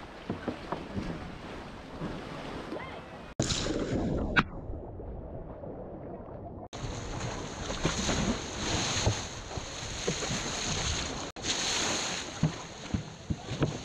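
Water splashing and sloshing as an Asian elephant thrashes in a pool, shoving and lifting a large floating plastic toy, with waves slapping close by. For a couple of seconds in the middle the sound turns muffled and dull.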